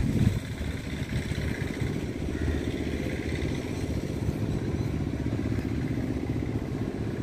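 A small engine running steadily at an even pace.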